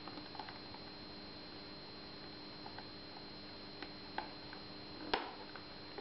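Faint ticks and clicks of a small plastic wiring connector and wires being handled, with one sharper click about five seconds in as the connector is pushed home. A faint steady high whine runs underneath.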